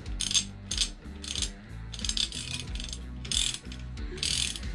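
Socket ratchet wrench clicking in short, irregularly spaced runs as it is swung back and forth on a bolt of the engine.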